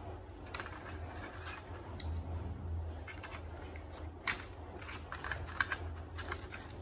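Light plastic clicks and taps as toy doctor-set pieces, a plastic stethoscope among them, are pressed into the moulded slots of a plastic carry case, with a few sharper clicks past the middle.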